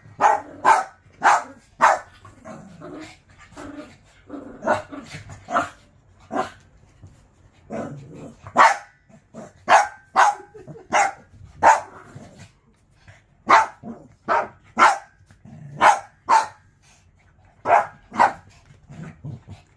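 Small dogs barking as they play: short, sharp barks in quick runs, with a few short lulls between.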